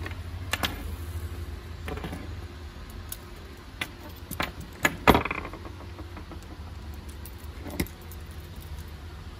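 Metal clicks and clinks from a lanyard's steel snap hook and the tethered hand tools being handled, about seven sharp strokes with the loudest about five seconds in, over a steady low hum.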